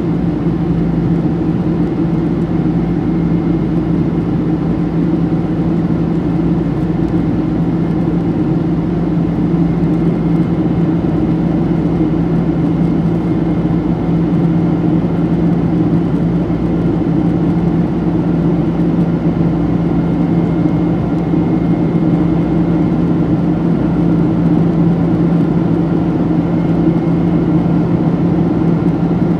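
Steady cabin drone of a Boeing 767-300 in its climb: its GE CF6 turbofan engines and the rush of air over the fuselage, with a constant low hum and no change in level.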